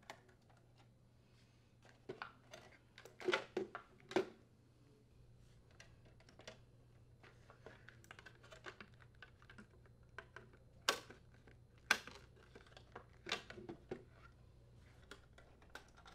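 Faint, scattered clicks and knocks of hand tools turning screws in a plastic ice maker assembly as it is handled, with a few sharper clicks among them.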